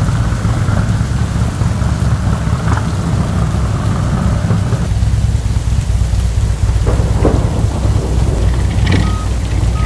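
Heavy rain falling, with a deep steady rumble under it. Near the end a short electronic beep starts repeating at an even pace.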